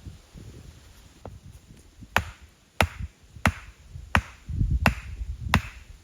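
Wood being chopped: six sharp strikes at a steady pace, roughly one every two-thirds of a second, starting about two seconds in.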